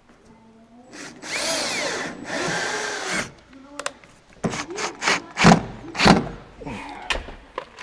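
Cordless drill-driver driving screws into a truck door panel: two runs of about a second each, with a whining motor pitch. Then, from about four seconds in, a series of short sharp knocks and clatters, two of them loud.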